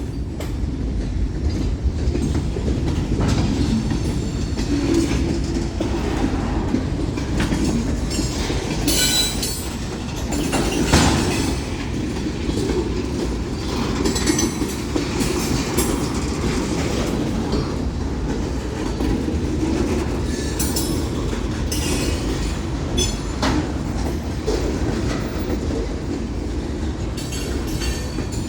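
Freight cars of a Union Pacific manifest train rolling past: a steady rumble with the clickety-clack of wheels over rail joints and, now and then, a brief high wheel squeal.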